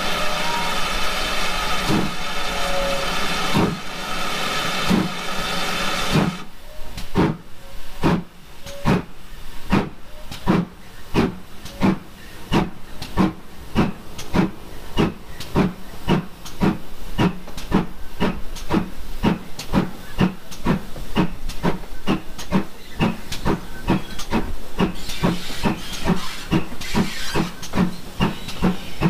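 Steam locomotive, the GWR Manor class 7820 Dinmore Manor, setting off: a steady hiss of steam with a few slow exhaust chuffs. About six seconds in the hiss stops, and the chuffs come quicker and quicker as it gathers speed.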